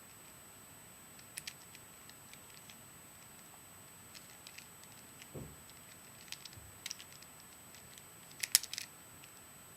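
Rubik's Cube being turned by hand: scattered faint plastic clicks of the layers snapping round, with a louder cluster of clicks about eight and a half seconds in.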